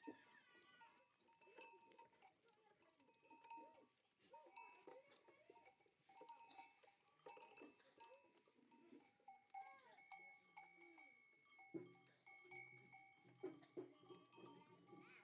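A flock of sheep and goats bleating over and over, many animals calling at once, with their neck bells ringing.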